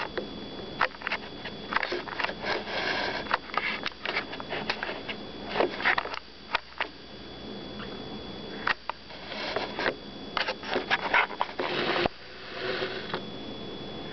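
A hand patting and rubbing a baby's back to bring up a burp: soft, irregular pats with short breathy noises between them.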